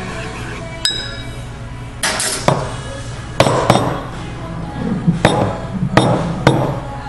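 A metal spoon taps once against the rim of a ceramic cup with a short ring about a second in, then a stainless steel milk pitcher and the cup knock against the stone counter several times as they are handled, over background music.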